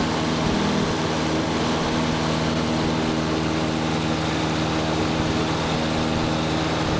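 Light propeller airplane's piston engine droning at a steady pitch, heard from inside the cabin with rushing air noise.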